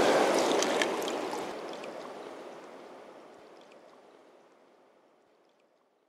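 Shallow river water flowing and rippling over stones, fading out steadily until it is gone about five seconds in.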